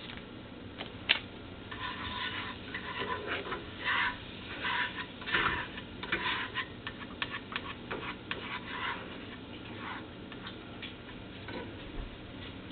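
A spoon stirring and scraping in a cooking pot, in a run of irregular strokes, with a sharp tap about a second in. This is the flour being worked in with the beef.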